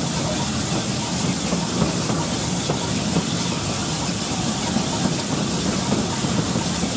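Steam-hauled train behind LNER A4 Pacific 4464 Bittern running at speed, heard from just behind the locomotive: a steady rushing noise of wheels on rail and steam hiss, with faint scattered clicks.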